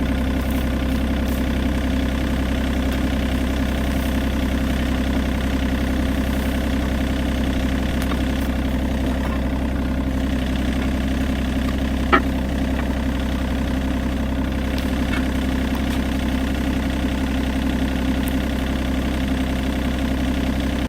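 John Deere 35G mini excavator's diesel engine idling steadily, with one sharp metallic click about twelve seconds in.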